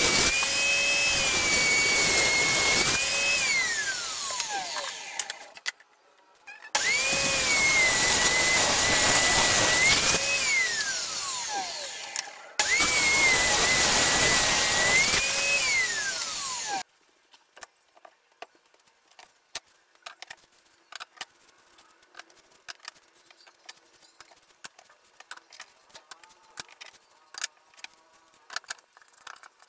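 Benchtop table saw whining at full speed, its pitch sagging as the blade rips thin strips of wood, then gliding down as the motor spins down after switch-off; this happens three times. For the last dozen seconds there are only faint, scattered light clicks and taps.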